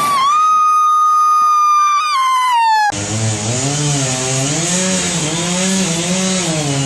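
Chainsaw running at full throttle with a steady high whine. Its pitch sags just after two seconds and falls away, then the sound cuts off abruptly about three seconds in. A lower engine note follows, rising and falling in pitch over a hiss.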